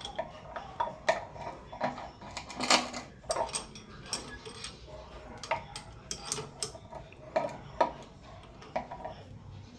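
Irregular clicks, clinks and sharp knocks of hand tools and hard parts of a shower valve being handled and worked on, a few strokes louder than the rest.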